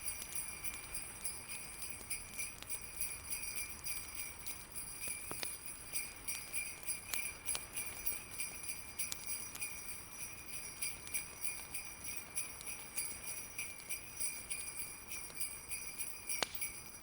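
Sleigh bells jingling in a steady rhythm, a few shakes a second, with the occasional sharp crackle of a wood fire.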